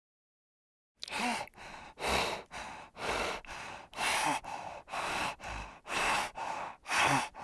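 Heavy breathing close to the microphone, beginning about a second in: rushing breaths in and out, alternating louder and softer, about one full breath a second.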